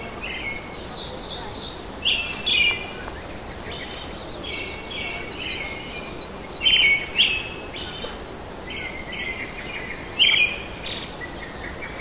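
A bird calling over and over in short chirpy phrases, often two in quick succession, every second or two, over a steady background hiss.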